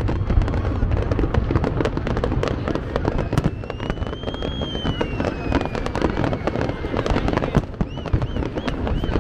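Fireworks display going off in a steady barrage of crackling and popping over deep booms. A long whistle rises and then falls in pitch through the middle, and a few short whistles come near the end.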